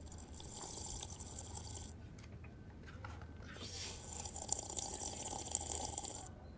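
Juice box sucked through a straw: two long, noisy slurps, the second starting about three and a half seconds in.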